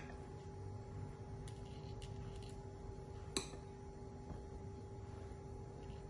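A metal spoon clicking lightly against a ceramic plate a few times while scooping pastry filling, the sharpest tap about three and a half seconds in, over a faint steady hum.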